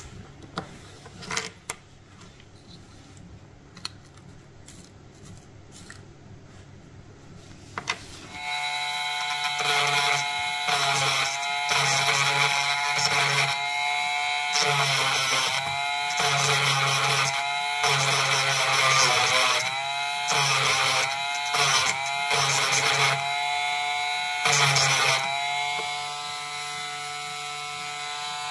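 Makita DGA505 18 V brushless angle grinder: a few clicks, then about eight seconds in the motor spins up to a steady high whine. Its pitch dips and recovers about once a second, and it settles quieter near the end.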